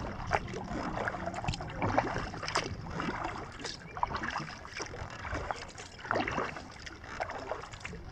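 Water splashing and dripping at irregular moments as a kayak is paddled, with wind rumbling on the camera microphone on the kayak's deck.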